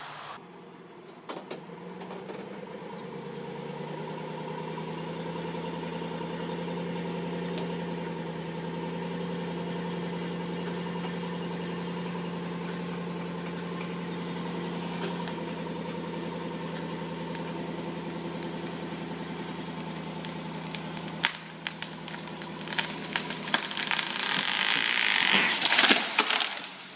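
An engine idling steadily, then a tree coming down: a loud rush of cracking and snapping branches and thuds as it hits the ground, about four seconds before the end.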